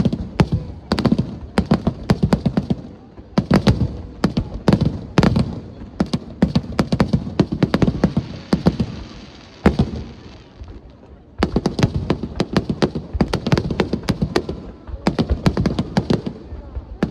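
Fireworks display: rapid volleys of sharp bangs and crackles in dense clusters. There is a short lull about ten seconds in, then another fast volley.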